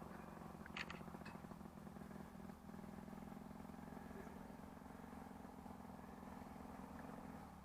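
A small aircraft engine running steadily at a faint low hum as it comes in to land, dropping away shortly before the end. A couple of short clicks about a second in.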